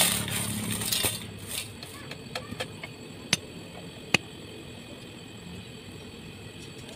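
An engine's sound fades away over about the first second, then it is quiet but for a faint steady background and scattered sharp taps and knocks, two louder ones around the middle.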